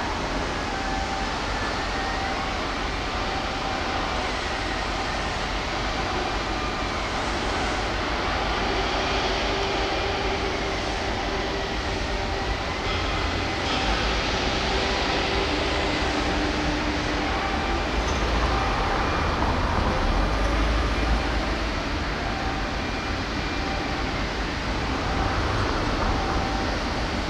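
Steady shipyard machinery din: a continuous low rumble with faint whining tones, one of them broken into regular short pieces and another wavering up and down every couple of seconds.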